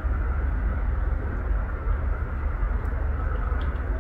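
Steady low outdoor rumble with a few faint ticks about three and a half seconds in.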